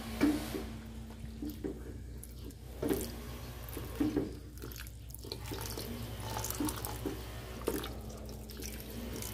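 Water trickling from a cup into a stainless steel pot of thick peanut kare-kare sauce while a wooden spoon stirs it, scraping and knocking against the pot every second or so. A steady low hum runs underneath.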